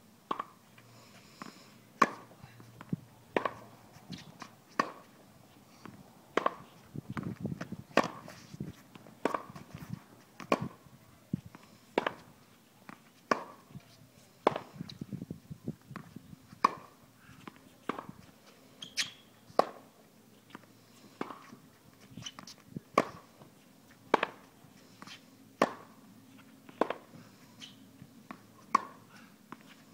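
A tennis ball hit with a racket against a practice backboard over and over: a sharp pop about every one and a half seconds, with smaller knocks of the ball off the wall and court in between.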